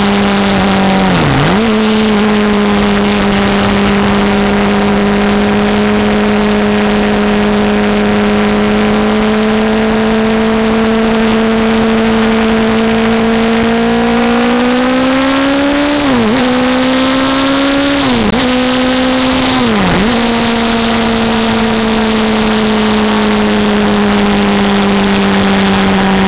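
Sportbike engine running at steady high revs with wind noise, a quick dip in pitch about a second in. Past the middle it revs up through three quick gear shifts about two seconds apart, each a sharp drop and recovery in pitch, then settles back to a steady cruise.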